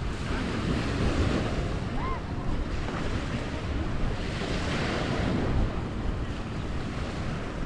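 Waves washing onto the beach in swells, with wind rumbling on the microphone.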